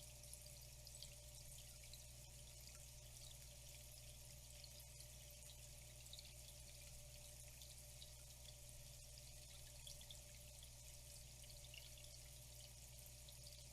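Faint, steady trickle of flowing water with many small drips, over a low steady hum.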